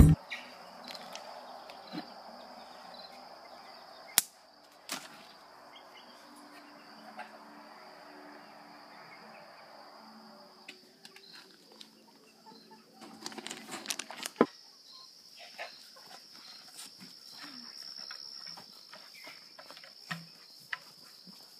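Quiet outdoor ambience: a steady high insect drone, with a soft hiss that fades out about halfway through and a few sharp knocks.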